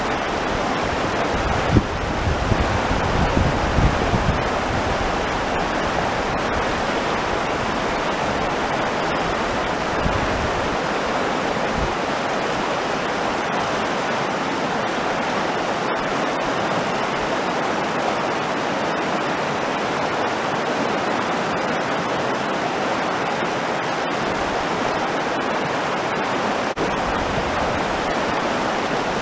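Fast-flowing mountain river rushing over a stony bed: a steady, unbroken rush of water.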